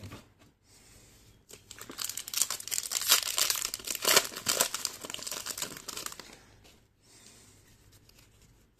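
Foil trading-card pack being torn open and crinkled: a dense crackling that starts about one and a half seconds in and dies down about six seconds in, followed by faint rustles as the cards are pulled out.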